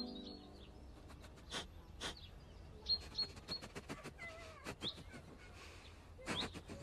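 High-pitched animal chirps and short gliding squeaks, mixed with several sharp clicks, over a faint low hum.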